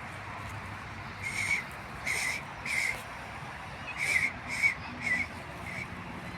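A person making a string of about seven short, high kissing squeaks to call stray cats, unevenly spaced.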